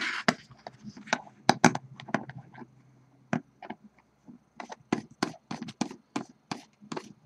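Fingers handling a metal atomizer deck on a box mod and its cotton wick: a brief rustle, then a run of irregular sharp clicks and taps.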